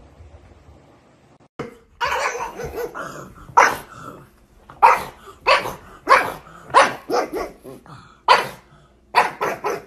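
A pug barking repeatedly, short sharp barks coming about every half second to second after a longer rough outburst that starts about a second and a half in.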